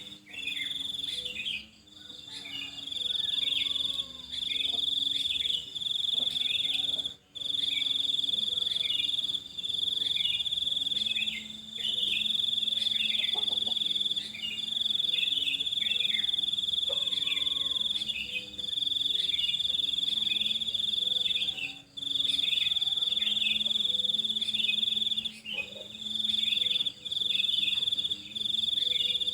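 A cricket trilling steadily at a high pitch in long runs of a few seconds, broken by short pauses. Faint bird chirps are scattered through it.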